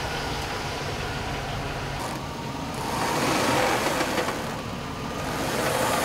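Suburban's engine idling steadily, with the sound shifting about two seconds in.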